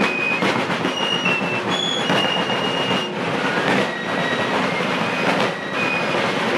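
Fife and drum corps playing a march: a high fife melody over rapid rope-tension drum strokes and rolls.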